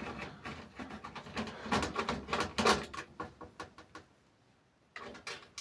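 Clicks, knocks and scraping of a motherboard being worked loose and pulled out of an old PC case, with a short pause about four seconds in before the handling noise resumes.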